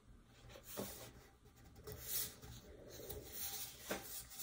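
Faint rubbing and rustling of sublimation paper as hands smooth it and pull it tight around a tumbler, with a few soft handling noises.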